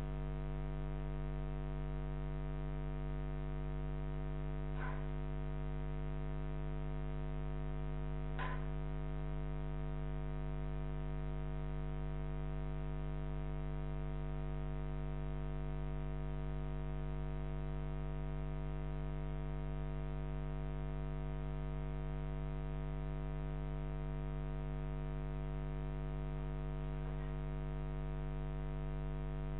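Steady electrical mains hum in several pitches, unchanging throughout, with two faint short clicks about five and eight seconds in.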